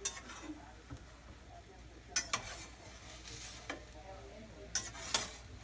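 Steak pieces sizzling in a frying pan while being stirred, with a few sharp taps and scrapes of the utensil against the pan.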